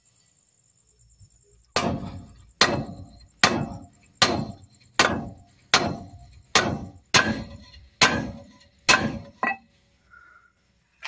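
Heavy hammer blows driving a new stud bolt into a Howo dump truck's wheel hub, metal on metal with a short ring after each strike. About ten evenly spaced blows, a little more than one a second, start nearly two seconds in and stop near the end. The stud is a tight fit.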